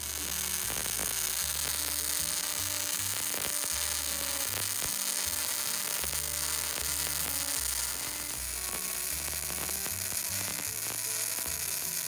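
Electric arc welding: a steady crackling sizzle of the arc as a weld is run along steel plate, over background music with a plodding bass line.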